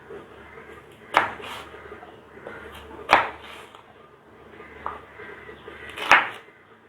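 Knife cutting raw green banana into pieces: three sharp knocks about two seconds apart, with a couple of fainter ones between.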